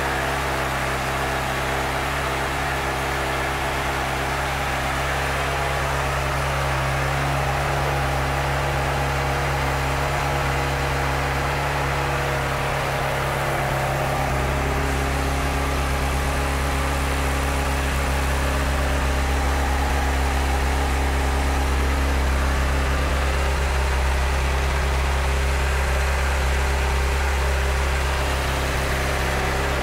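2009 Honda CBR600RR's 599 cc inline-four engine idling steadily, without revving.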